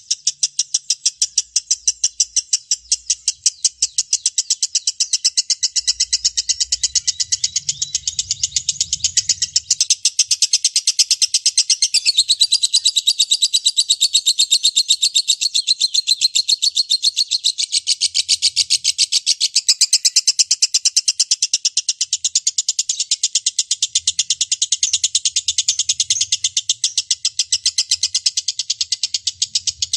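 Lovebird giving a long, unbroken 'ngekek': a rapid, even chatter of shrill, high notes, many per second, kept up without a pause.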